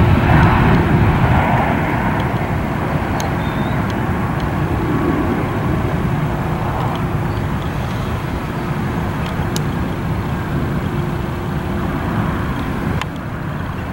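Jet airliner engine noise, a steady rumble that is loudest at the start and slowly fades as the plane moves away.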